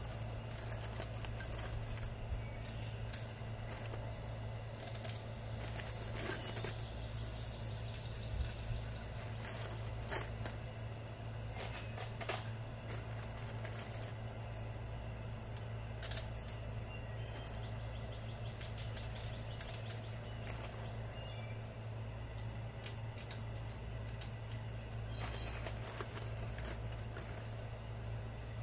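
Hex-head roofing screws clinking against a steel wire mesh screen as they shift and drop into its openings: scattered, irregular metallic ticks and jingles over a steady low hum.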